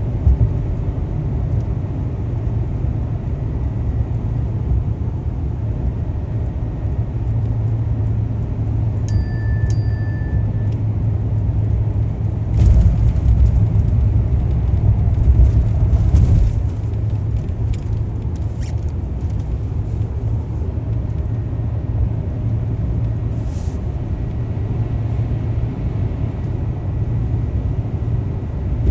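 Car driving on a road: a steady low rumble of tyres and engine that grows louder for a few seconds in the middle. Two short electronic beeps sound about nine seconds in.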